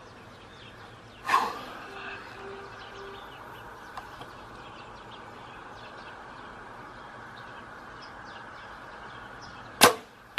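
Compound bow shot: a very sharp snap as the string is released near the end, after a sharp knock about a second in.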